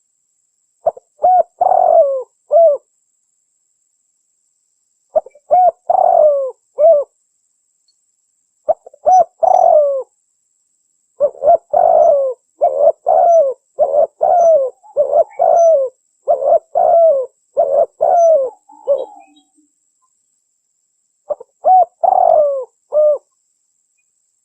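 Spotted dove (tekukur) cooing: five phrases of repeated low, rising-and-falling coos a few seconds apart, the middle phrase a longer run of coos. A female's call used as a lure to draw males.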